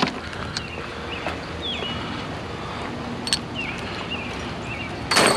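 Steady hiss of rain falling, with a few faint short chirps in the middle, a small click and a loud thump near the end.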